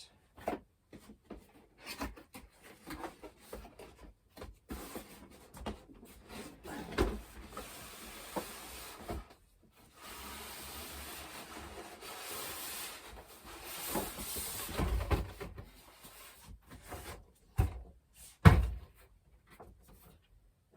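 Cardboard box and packing being handled to unpack a foam RC model jet: rubbing and scraping of cardboard and plastic, with a longer steady scrape in the middle and several thumps, the loudest about two seconds before the end.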